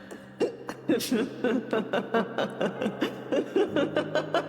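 A woman laughing in a rapid run of short bursts, over a low, steady droning music note.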